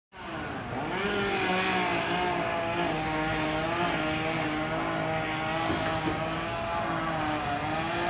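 Two-stroke petrol chainsaw running at high revs while cutting palm fronds. Its pitch rises about a second in, then holds, wavering a little as the chain bites.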